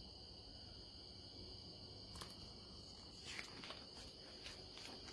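Near silence: faint room tone with a steady, high-pitched cricket trill, and a few faint clicks in the second half.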